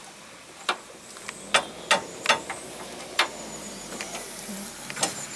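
About six sharp, irregular metal knocks from a hammer tapping a Land Rover Defender's Panhard rod up into line so the bolt will pass through its bush.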